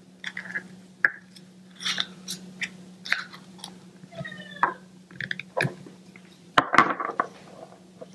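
Small plastic toy pots clicking and tapping as a lid is worked and the pots are set down on a table, with light crinkling of plastic; the loudest knocks come a little past halfway.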